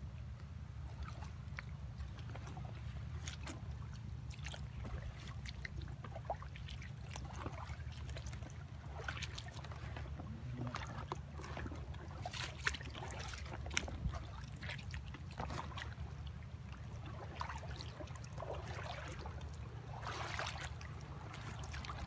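Shallow seawater trickling and sloshing around rocks on a reef flat, with scattered small clicks and splashes over a steady low rumble.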